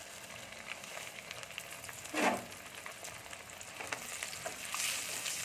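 Sago pearls (sabudana) sizzling and crackling as they fry in hot oil in a steel strainer basket, stirred with metal forks. One short louder sound comes about two seconds in, and the sizzle grows louder near the end.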